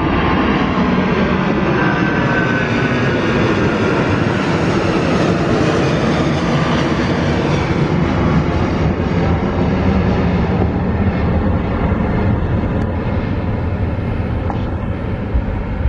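Boeing 777-200ER jet engines at high thrust as the airliner climbs away overhead on a missed approach. A loud, steady jet roar whose tones slowly fall in pitch, its higher part thinning out in the second half as the aircraft moves away.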